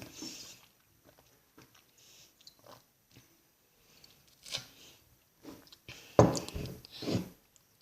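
Quiet mouth sounds of someone drinking a cold Fanta: small sips, swallows and clicks, with a louder burst of noise about six seconds in.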